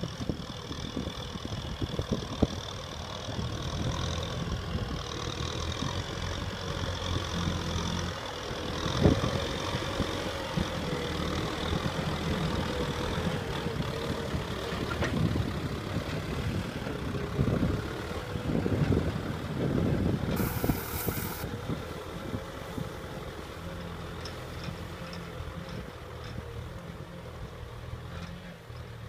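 Kubota M6040SU tractor's diesel engine running steadily under load while it pulls a disc plow through dry ground, with irregular knocks and clunks.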